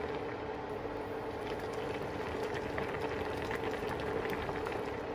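Spicy hotpot broth bubbling at a steady boil in an electric hot pot, with many small popping bubbles over a steady low hum.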